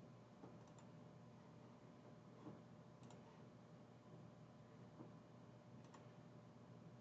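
Near silence with a faint steady hum, broken by a handful of faint, sharp clicks spaced irregularly about a second apart.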